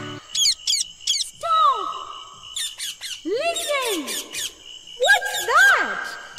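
Parrot calls: a series of harsh squawks that arch up and down in pitch, with quick high chirps in between.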